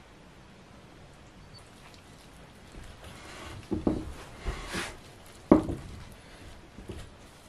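Silicone spatula stirring flour and water into a dough in a glass bowl: soft scraping with a few knocks of the spatula against the bowl, beginning about three seconds in, the sharpest knock a little past the middle.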